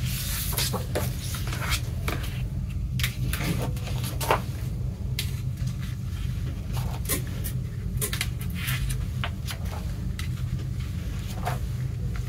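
Large paper lyric sheets and a booklet from a vinyl LP being handled and their pages turned, making irregular short rustles and scrapes over a steady low hum.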